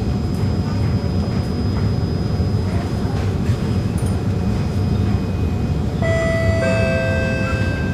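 Steady low hum inside a Singapore MRT train standing at a platform with its doors open. About six seconds in, the door-closing chime sounds: a sustained tone followed by a lower one, held as a falling two-note chime that warns the doors are about to close.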